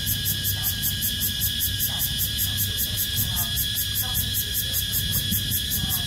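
Chorus of cicadas calling at night: a steady shrill drone with a fast, even pulsing buzz on top, about five pulses a second.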